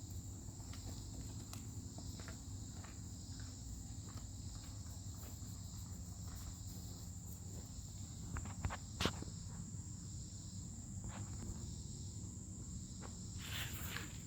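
Quiet barnyard ambience: a steady high thin trill over a low hum, with scattered soft clicks and rustles of animals moving about in the hay, and one sharper click about nine seconds in.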